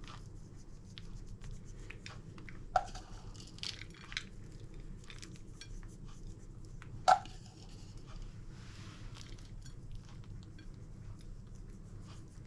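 Chopped nuts sprinkled by hand onto pastries on a ceramic plate: scattered light pattering and ticks, with two sharper clicks about three and seven seconds in, over a low steady hum.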